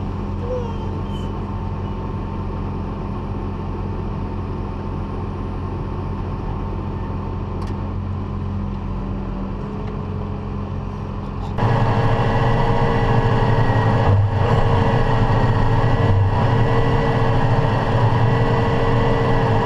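A heavy farm vehicle's engine running steadily. About twelve seconds in it suddenly becomes louder and fuller, then holds steady at that level.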